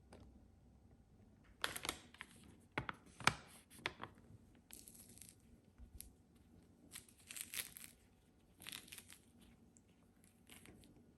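Packaging being torn open and handled: irregular bursts of tearing and crinkling, with a couple of sharp clicks about three seconds in.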